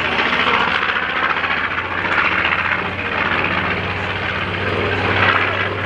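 Wright R-2600 Twin Cyclone radial piston engines of a World War II warbird flying overhead: a steady propeller drone with a constant low hum.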